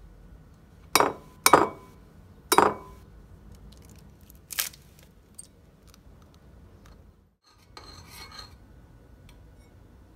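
Eggs knocked against the rim of a ceramic bowl to crack them: three sharp knocks with a short ring in the first three seconds, then a lighter click about halfway. Faint scraping follows near the end.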